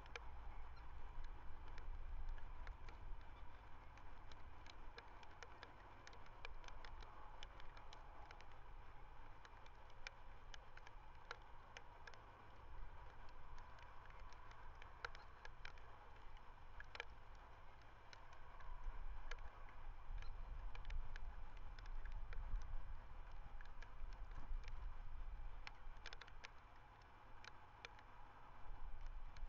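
Wind buffeting an outdoor webcam microphone: a low rumble that swells about two-thirds of the way through, with scattered sharp clicks and crackles over a faint steady hum.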